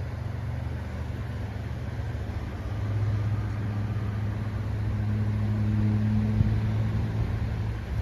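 Road traffic droning steadily, growing louder about three seconds in as a vehicle passes close by.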